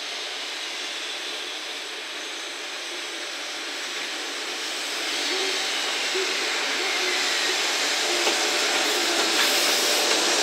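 EF66 electric locomotive rolling slowly past, its running noise a steady hiss of cooling blowers and wheels on rail that grows clearly louder about halfway through as it draws level.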